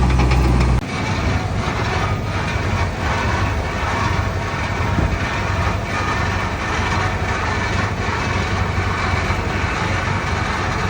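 Komatsu D31P crawler bulldozer working: diesel engine running, with a continuous rattling and clanking clatter. A steady low engine drone drops away abruptly about a second in, leaving the rougher clatter.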